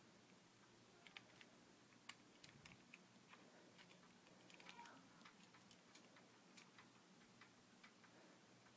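Near silence with faint, irregular small clicks.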